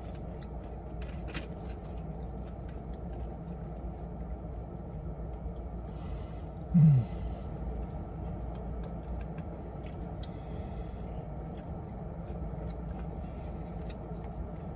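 Steady low hum inside a car cabin, with small clicks and rustles of people eating from takeaway packaging. One short voiced sound falling in pitch comes about seven seconds in.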